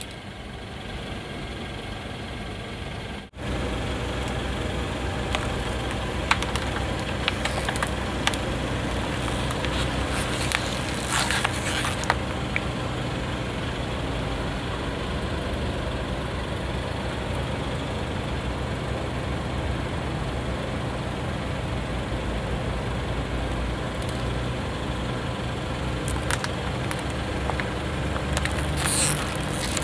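Car engine idling steadily while the car creeps forward, with scattered clicks and crackling bursts about ten seconds in and again near the end, as the tyre presses down on a clear plastic food tub filled with jelly.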